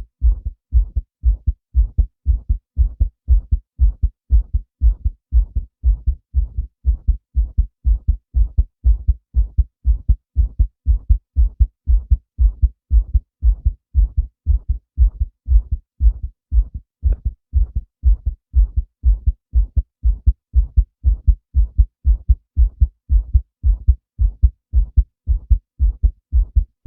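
Human heartbeat beating steadily: an even rhythm of low thumps, about two a second.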